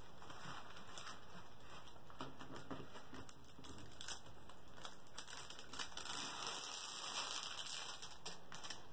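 Small plastic zip bags of diamond-painting resin drills being handled and set down, with light crinkling and scattered small clicks and taps. Near the end the canvas's clear plastic cover film is lifted and crinkles.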